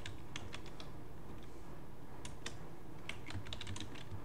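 Computer keyboard keys clicking as a terminal command is typed: short light keystrokes at an uneven pace, bunching together near the end, over a steady low background hiss.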